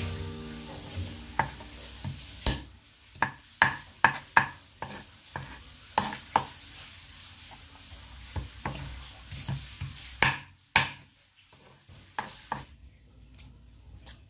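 Cleaver knocking and scraping against a whole patin (shark catfish) on a cutting board: irregular sharp knocks, one or two a second, the loudest pair about ten seconds in, over a steady hiss that stops about a second and a half before the end.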